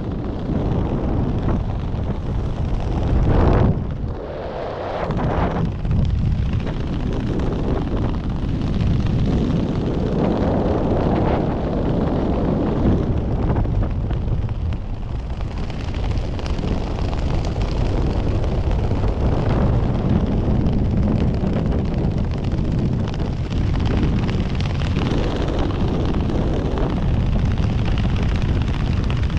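Loud, gusting wind roar buffeting the camera microphone, as in skydiving freefall in a sit-fly position.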